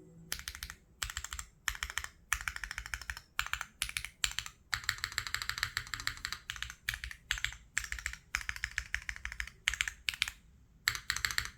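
Typing in quick bursts with short pauses on a gasket-mounted Neo60 Core custom mechanical keyboard with Gateron Type R tactile switches, no foam, an aluminium plate and GMK keycaps.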